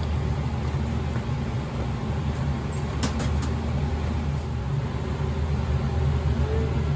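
Steady low drone of commercial kitchen equipment, with a few light clicks about three seconds in as the oven and cake tin are handled.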